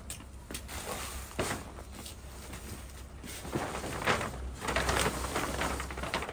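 A plastic tarp rustling and crackling as it is picked up and shaken out, getting louder and busier about halfway through. There is a light knock about a second in.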